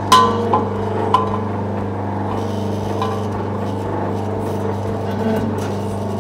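Steady electric-motor hum from the alloy wheel repair machine, with sharp metal clinks of steel cylinder adapters and tools being handled against the machine, the loudest just after the start and a few lighter ones within the first three seconds.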